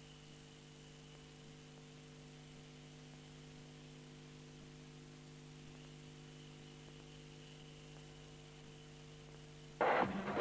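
Steady electrical mains hum with a faint buzz. Near the end, loud music starts suddenly.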